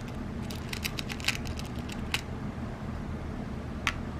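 Lead airgun pellets clicking against each other and the metal tin as fingers pick through them, a scatter of small clicks in the first two seconds. Just before four seconds in, a single sharper click as a pellet is set down on the steel pan of a digital scale, over a steady low hum.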